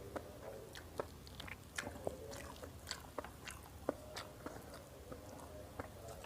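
A person chewing a mouthful of rice and goat curry close to the microphone: faint, irregular small wet mouth clicks, several a second.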